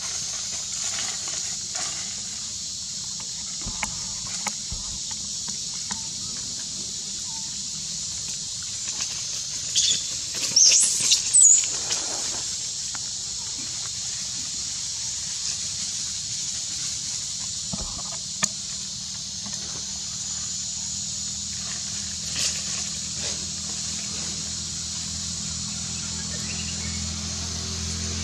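Outdoor forest ambience with a steady high-pitched drone, soft scattered rustles and clicks of dry leaves as a baby macaque moves about, and a short cluster of loud, high-pitched squeals about ten seconds in.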